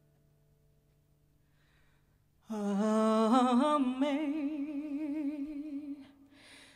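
A woman's unaccompanied, wordless vocalise that enters after about two and a half seconds of near silence: one long, ornamented phrase with wide vibrato. A breath follows near the end.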